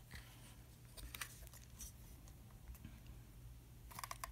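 Faint handling of a Minolta manual film camera's rewind knob as fingers pull and turn it to release the back cover: a few light clicks and scrapes, ending in a quick run of small ticks.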